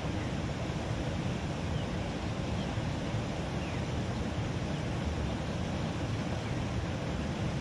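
Steady rushing of water pouring out of a drainage outlet into a ditch, an even noise with no breaks.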